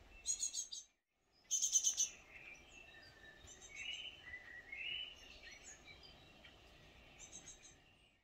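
Great tits calling: short bursts of rapid, high chirping, typical of fledglings begging, with the loudest burst about a second and a half in and a few lower, arched notes a few seconds later. The sound cuts out briefly about a second in.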